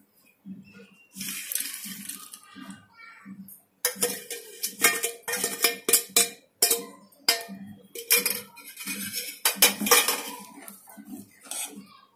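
Steel ladle scraping and clinking against a stainless steel pot of rava payasam. It starts with softer scraping. From about four seconds in come many sharp, ringing clinks as fried cashews and raisins are tipped in from a small steel bowl and stirred through.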